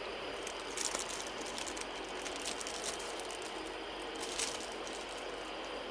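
Faint handling noises, a few light clicks and rustles about a second in and again later, over a steady background hum.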